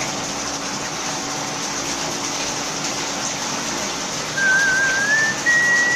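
Liquid streaming from a filter press's row of outlet taps into a trough, a steady splashing. About four seconds in, a wavering whistled note starts and slowly climbs in pitch.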